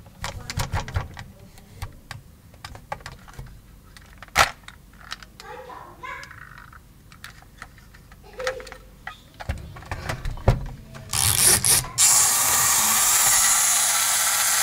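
Plastic clicks and knocks of a toy crane tow truck being handled, its crane arm and flatbed moved by hand. About eleven seconds in, a loud steady rushing noise starts and keeps going.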